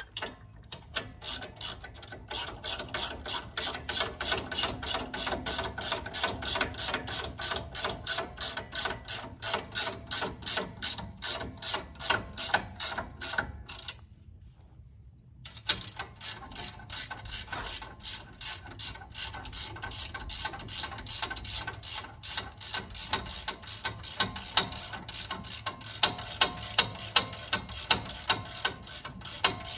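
Hand ratchet with an 18 mm socket clicking steadily, about three clicks a second, as it tightens the axle-shaft retainer nuts and draws the axle bearing into the housing. It stops for a moment about halfway through, and the clicks come louder and more spaced out near the end.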